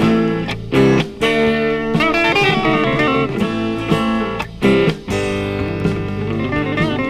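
Instrumental rural psych-folk rock on an old vinyl LP: strummed acoustic guitar under an electric lead guitar playing bent notes.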